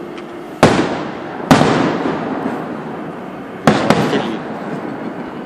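Fireworks display: aerial shells bursting in three loud booms, the first two close together and the third about two seconds later, each trailing off in a fading rumble.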